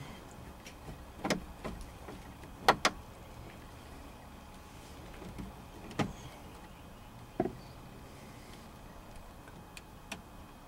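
A handful of sharp clicks and knocks at irregular intervals from hands fitting the plastic instrument cluster and dash trim of a Dodge Caravan back into place and putting its screws back in. The loudest is a quick pair of clicks about three seconds in.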